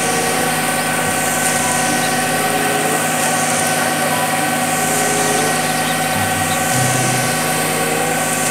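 A concrete mixer truck's diesel engine running steadily while the drum turns and discharges concrete down the chute, with constant engine tones over an even mechanical rumble.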